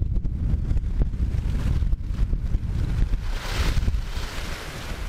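Wind buffeting the microphone, a heavy low rumble, with the sea washing below. A brief louder hiss swells up about three and a half seconds in.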